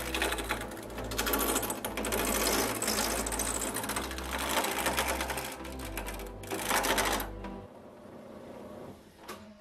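Turning gouge cutting into a spinning wood-and-resin blank on a lathe, a rapid, uneven scraping as the out-of-round blank is brought toward a circle. The cutting stops about seven seconds in.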